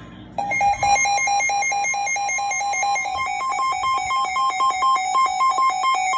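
Weather radio alert alarm sounding for a severe thunderstorm warning: loud electronic beeping that starts about half a second in, first rapid pulses at one pitch, then from about three seconds in a warble alternating between two pitches a few times a second.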